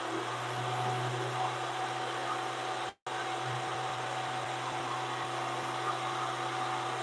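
VEVOR 13-inch benchtop thickness planer running steadily with no board in it, a constant motor hum with a thin whine over it. The sound cuts out for an instant about three seconds in.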